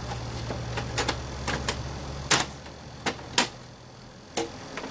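Plastic clicks and light knocks, irregularly spaced, as the rear cover of an HP LaserJet P2015 laser printer is pressed and snapped into place on the printer's frame.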